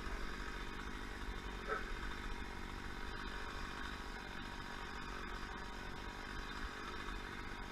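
A motor engine running steadily in the background, an even drone with no clear change in speed.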